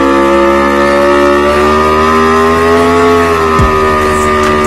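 Aprilia sportbike engine held at high, steady revs during a burnout, the rear tyre spinning against the pavement; the pitch eases down a little about three seconds in.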